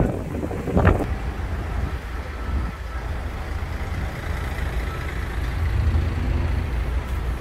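Steady low rumble of motor traffic and idling vehicles on a city street.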